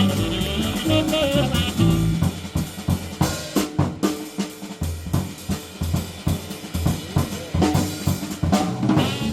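Jazz drum kit playing an unaccompanied break of snare hits, rimshots, bass drum and hi-hat, between tenor saxophone phrases. The tenor saxophone line ends about two seconds in and comes back near the end.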